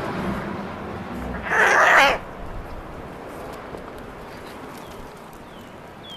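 Two domestic cats fighting: one cat lets out a short, harsh screech about one and a half seconds in. After it the fight goes on much more quietly.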